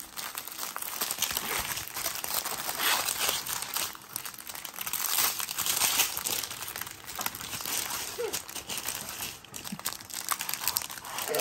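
Thin plastic crinkling as a strip of small zip-lock bags of diamond painting drills is pulled out of a clear plastic bag and unfolded, with continuous rustling that swells loudest near the middle.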